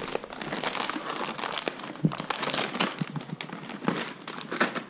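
Golden retriever rummaging with his head inside a cardboard box, crinkling and rustling the packing paper in it, with many small crackles.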